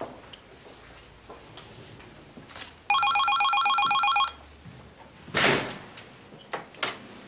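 Electronic telephone ringing: one warbling ring of rapidly repeated pips lasting about a second and a half, starting about three seconds in. It is followed a second later by a brief loud burst of noise and then a click.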